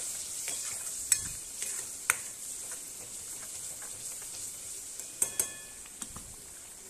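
Spice paste and tomato puree sizzling in oil in a metal kadai while a metal spoon stirs it, the spoon clinking sharply against the pan about a second in, at two seconds, and twice just after five seconds.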